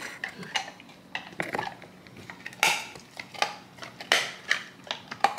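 A pit bull-type dog chewing a treat: irregular crunches, smacks and clicks of its jaws, with louder crunches about two and a half and four seconds in.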